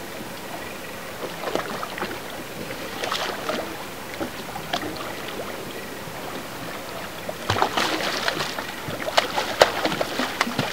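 Sea water sloshing against the side of a boat, with a run of louder, sharper splashes from about seven seconds in as a cownose ray is let go over the side and splashes at the surface.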